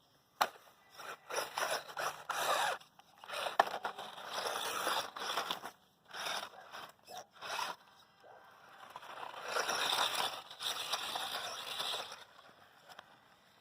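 Small RC truck's knobby tires scrabbling and scraping through loose dirt in uneven stretches of a second or more, the longest near the end, then dying away.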